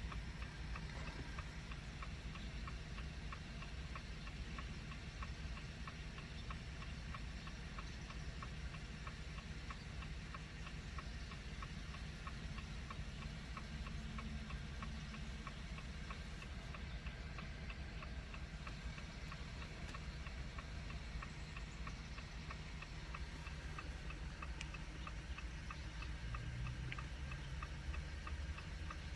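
2019 Jeep Compass hazard-light flasher ticking steadily and evenly, over a low steady background rumble.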